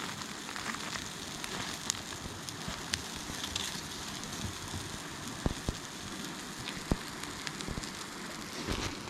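Campfire crackling, with scattered sharp pops over a steady hiss.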